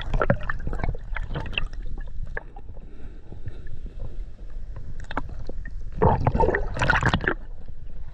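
A hand digging into wet sand in shallow water for tuatua clams: water sloshing and gurgling with gritty crackles of sand and shell. A louder burst of splashing comes about six seconds in.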